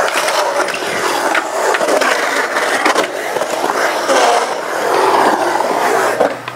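Skateboard wheels rolling on a concrete bowl, a steady roar that dips and swells as the board carves up and down the walls, with a few sharp clacks.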